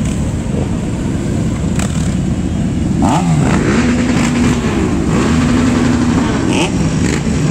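Several motorcycle engines running and revving together as a procession of bikes rides along, their pitches rising and falling over one another.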